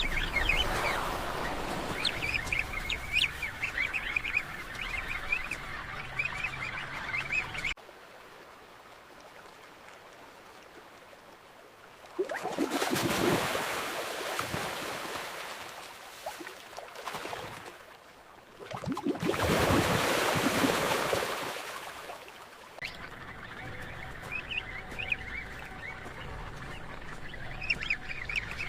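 A penguin colony's many overlapping honking calls stop with an abrupt cut about eight seconds in. A quiet, muffled stretch follows, broken by two swells of rushing water noise, like splashes and movement, one around twelve seconds in and one near twenty. The colony calls come back near the end.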